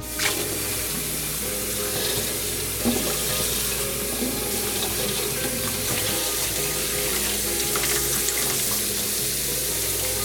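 Water running steadily from a tap into a sink, turned on suddenly at the start, with soft background music underneath.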